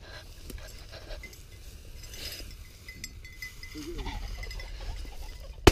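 Footsteps swishing through tall dry grass, then near the end a single loud shotgun blast fired at a flushed pheasant.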